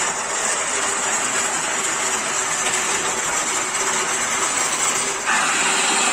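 Schulz FSB16 bench drill press running steadily; about five seconds in the bit starts cutting into a wooden leg, adding a louder, higher cutting sound.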